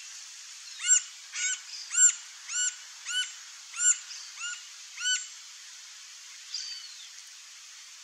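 Green-barred woodpecker calling a series of about eight loud, arched notes, roughly two a second, then a single falling note a second or so later, over a steady background hiss.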